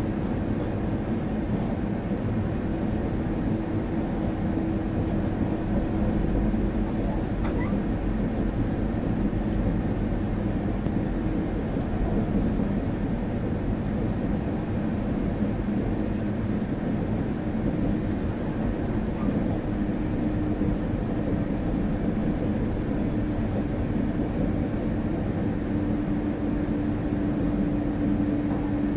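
Train running along the track heard from the driver's cab: a steady rumble of wheels on rails with a constant hum under it that drops slightly in pitch partway through.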